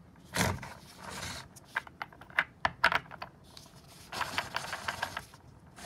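.223 brass cases clicking and rattling against the plastic of a Frankford Arsenal universal reloading tray as they are set into the holes and wiggled. There is a run of sharp clicks through the middle and a longer rattle near the end. The cases sit loosely in the holes, with some play and wobble.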